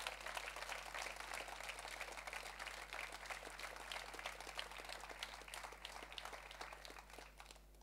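Audience applauding, a crowd's clapping that dies away near the end.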